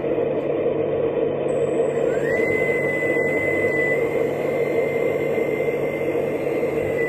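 1/14-scale steel hydraulic RC D11 bulldozer model running: a steady mechanical hum, joined about two seconds in by a whine that rises and then holds one pitch.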